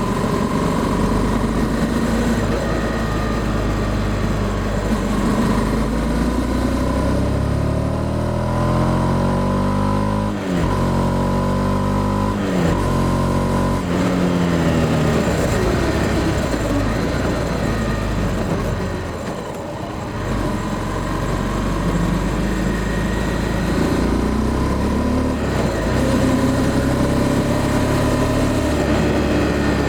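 Honda CB300F Twister's single-cylinder engine under way, accelerating through the gears. Its pitch rises and drops back at each shift, twice in quick succession around the middle, then eases off briefly before pulling again.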